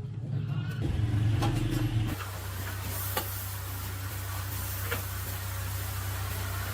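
Small single-cylinder motorcycle engine running with a steady low hum. It is louder for about a second and changes abruptly about two seconds in, with a few sharp clicks.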